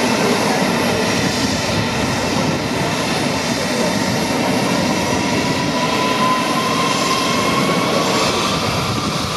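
Two rear-mounted turbofan engines of a Bombardier CRJ900 regional jet running at taxi power: a steady jet rush, with a thin whine that slowly rises in pitch over the last few seconds.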